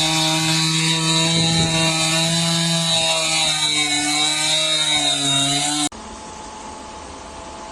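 Car engine held at high, steady revs after climbing just before; it cuts off abruptly about six seconds in, leaving a quieter steady hum.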